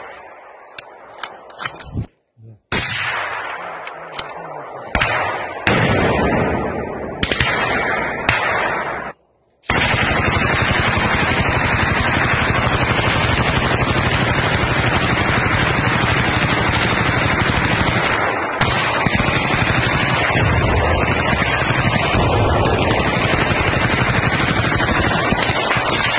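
Small-arms gunfire: scattered shots, each with an echoing tail, for the first nine seconds, then from about ten seconds in a continuous rattle of automatic fire.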